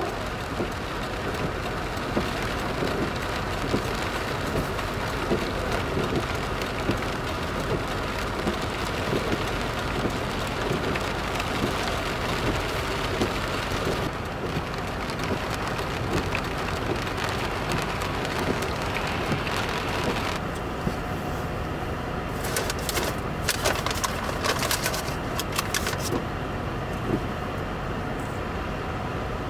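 Steady noise of wind and heavy rain, whose tone shifts twice. A run of sharp crackles comes about two-thirds of the way through.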